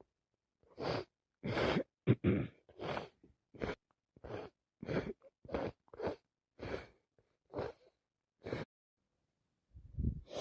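A person with a cold taking about a dozen short, sharp breaths, roughly one every two-thirds of a second, working up to a full sneeze that breaks out at the very end.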